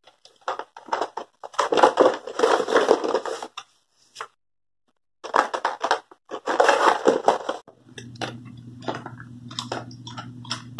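Paper and plastic packaging crinkling and rustling in two long bursts as a kids' tablet box is opened and its inner paper wrapping pulled out, with scattered clicks of handling. A low steady hum comes in about eight seconds in.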